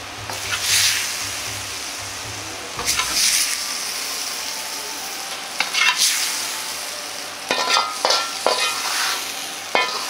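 A stir-fry of pork and fried tofu sizzling in a hot wok as it is served onto a plate. The sizzling swells three times, and from about seven seconds in there are repeated scrapes and clinks of a metal utensil on the wok.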